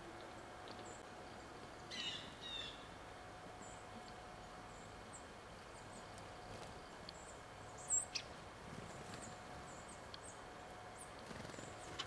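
Small songbirds calling faintly: thin high notes scattered throughout, a short run of calls about two seconds in, and one sharper, louder note about eight seconds in.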